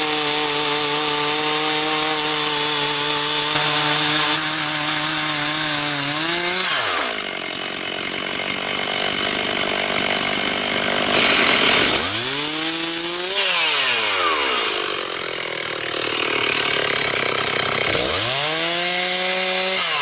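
Stihl 360 two-stroke chainsaw on a mini chainsaw mill ripping a walnut board. It runs at high revs for about six seconds, then the revs fall, and twice more they rise and fall again later on.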